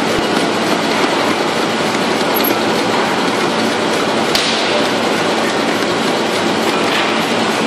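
Horizontal packaging machine running, a steady dense mechanical clatter with an occasional sharper click.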